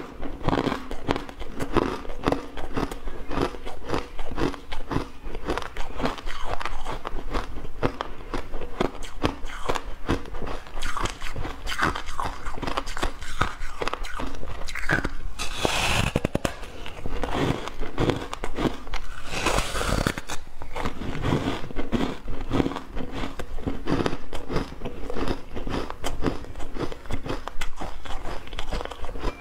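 Close-up crunching and chewing of a block of refrozen buckwheat ice: a dense run of crisp crunches, with two louder bites about halfway through and again about twenty seconds in.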